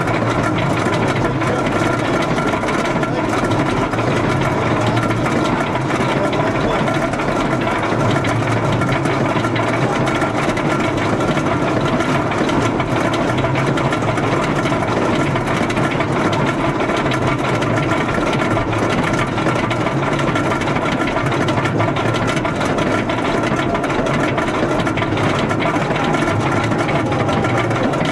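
Wooden roller coaster train climbing the lift hill, with the steady mechanical drone of the lift mechanism running unbroken throughout.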